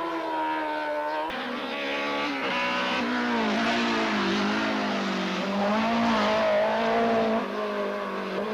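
Race car engine climbing a hillclimb course at full effort, its pitch rising under acceleration and falling on lifts and gear changes, with a sharp step about a second in and another about two seconds in.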